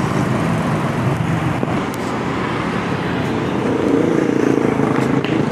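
Road traffic noise with a heavy vehicle's engine running, swelling a little from about three and a half to five seconds in.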